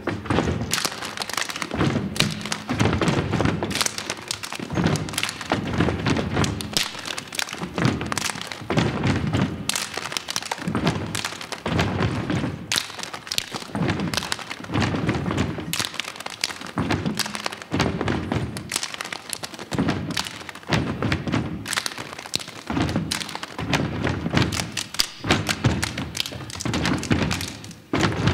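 A group of children stomping and clapping in a steady rhythmic step routine, the beats landing in quick clusters about once a second on a stage floor.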